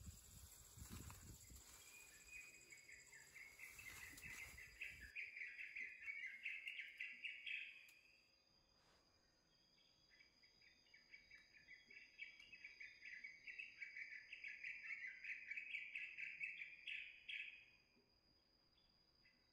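Two long bouts of rapid, pulsing high-pitched chirping from a wild animal, each lasting several seconds and growing louder before stopping. A low rumble runs under the first few seconds and cuts off suddenly.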